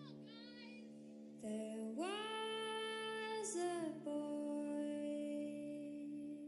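Slow, atmospheric recorded music: gliding, sweeping tones over a steady drone, then a singer holds one long note over the drone from about a second and a half in.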